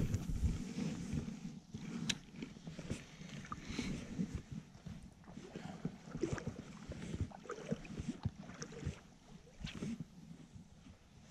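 Spinning reel cranked in short spells during a jig retrieve after a cast, with faint, irregular clicks and soft knocks.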